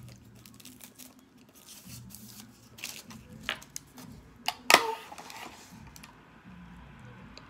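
Paper straw wrapper crinkling and tearing as it is pulled off a drinking straw, with several small clicks. A little under five seconds in, one sharp click, the loudest sound, as the straw is pushed through the plastic lid of a fountain-drink cup.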